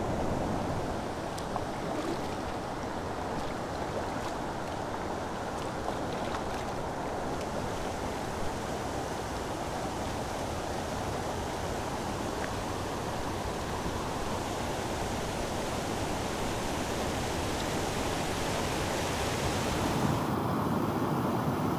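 Steady rush of flowing river water, a continuous even noise that shifts in tone near the end.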